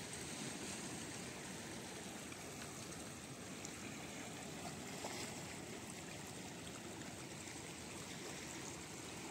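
Steady, low wash of shallow seawater trickling among the rocks of a rocky shore as the tide starts to come in.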